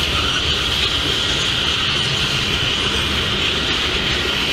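Union Pacific freight train of refrigerated boxcars rolling steadily past, its wheels rumbling on the rails, with a steady high hiss over the rumble.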